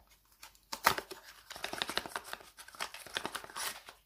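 Small cardboard box of a skincare serum being opened and handled: a sharp snap about a second in, then a couple of seconds of rustling and scraping of the packaging.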